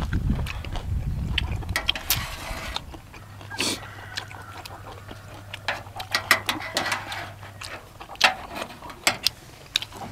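Metal spoons clinking and scraping on a metal tray, with slurping and chewing, heard as a scatter of short sharp clicks.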